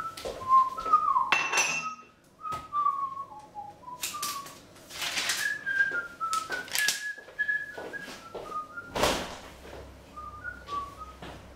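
A man whistling a tune, short held notes stepping up and down, with several knocks and clatters in between, the loudest a thump about nine seconds in.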